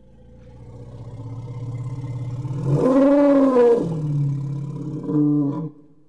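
Elephant vocalising: a low rumble swells into a loud call about three seconds in that arches up and then down in pitch, followed by a shorter call that cuts off abruptly near the end.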